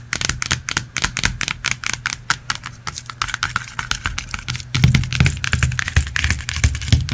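Rapid ASMR-style tapping on an object, several quick taps a second, joined by duller, heavier knocks from about five seconds in.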